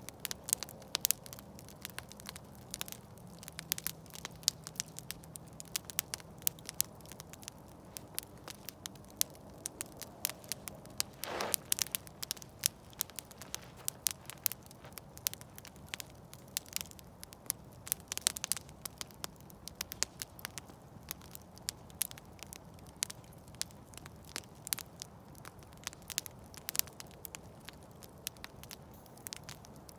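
Campfire burning and crackling, with dense, irregular sharp pops and snaps from the burning wood over a faint steady low rumble of the flames. A brief flurry of louder pops comes about eleven seconds in.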